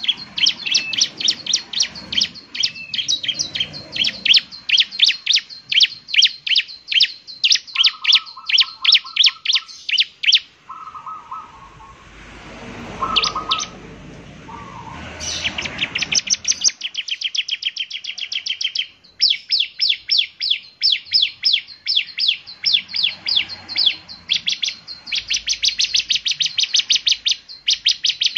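Ciblek (bar-winged prinia) singing a fast, unbroken run of high, repeated notes, about three a second. Around the middle the run stops for a few seconds, with a few lower buzzy notes and a noisy rustle, then starts again.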